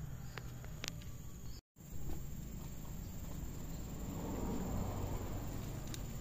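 Insects chirring steadily at a high pitch, with a few faint handling clicks and a brief dropout of all sound a little under two seconds in.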